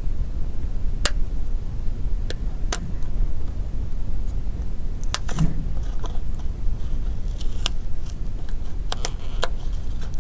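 Light clicks and snaps of a metal pry pick working along the seam of a Motorola Atrix HD's back plate, with a brief scrape a little past the middle, over a steady low hum.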